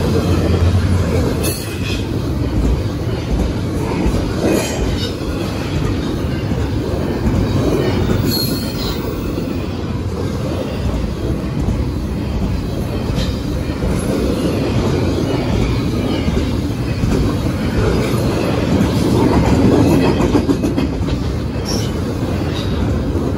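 Double-stack intermodal freight train's well cars rolling past close by: a steady, loud rumble of steel wheels on rail with clickety-clack over the joints, and a few brief high wheel squeals in the first half.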